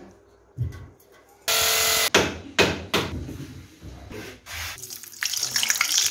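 A string of short, mixed household sounds: a loud half-second burst of noise and a few sharp knocks, ending with hot oil sizzling as malpoa batter fries in an iron kadai.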